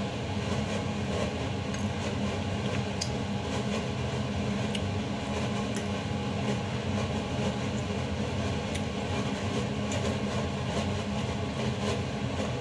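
A steady machine hum, with a few light clinks of a metal fork and spoon against a stainless steel pot.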